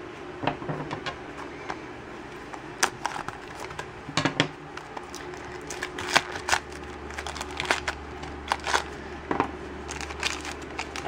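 Plastic toy packaging being opened by hand: a Shopkins basket's plastic shell clicks as it is pried open, and the small plastic blind bag inside crinkles as it is torn apart. The sound is irregular crackling with scattered sharp clicks.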